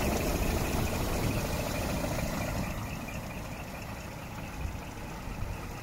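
Scania P380 truck's six-cylinder diesel engine idling steadily, loudest at first and a little quieter from about two to three seconds in.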